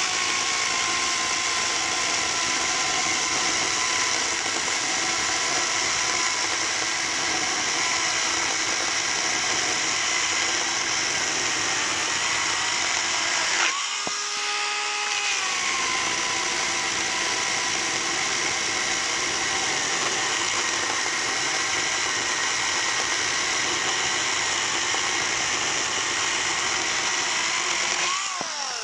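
Ferrex FN-AKS 4030 40-volt cordless chainsaw cutting through a log, its electric motor whine dropping in pitch as the chain bites under load. About 14 seconds in it briefly frees up and rises, then drops again as it bites back into the wood. Near the end the pitch rises as the chain comes free.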